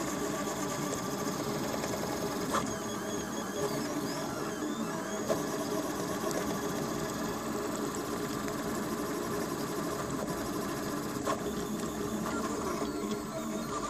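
Home-built delta 3D printer printing at very high speed: its NEMA 17 stepper motors buzz and whir continuously as the print head darts back and forth, with a couple of sharp clicks.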